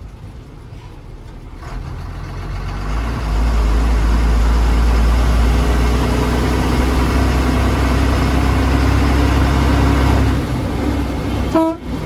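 A bus's diesel engine builds up from about two seconds in and then runs loud under load, with a deep rumble and a slowly rising engine note. It eases off shortly before a brief horn toot near the end.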